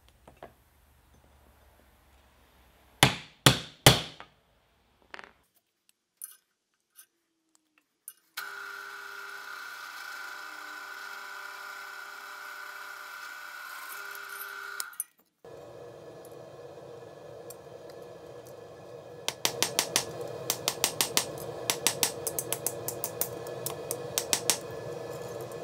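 Workshop sounds from making rebar blacksmith tongs. First come three sharp metal strikes. Next a drill press runs steadily with a clear whine while it drills the pivot hole through the two tong halves. Last, over a steady hum, comes a run of quick hammer blows on the assembled tongs on the anvil, about two to three a second, as the pivot is worked.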